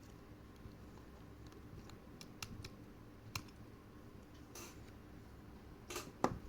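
Scattered small clicks and taps of watchmaker's tools on the parts of a Seiko 6309 watch, with two short scraping rustles, the second ending in a sharp click near the end.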